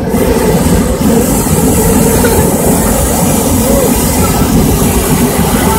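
Hot air balloon's propane burner firing overhead: a loud, steady rushing noise with no break.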